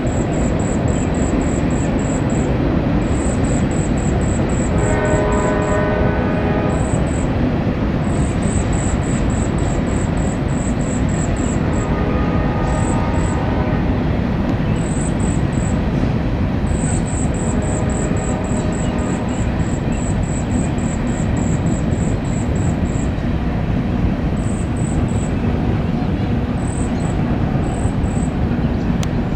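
Freight train cars, tank cars and covered hoppers, rolling steadily across a steel railroad bridge. The rolling noise is loud and continuous. The locomotive's air horn sounds about five seconds in and again, more faintly, around twelve seconds in.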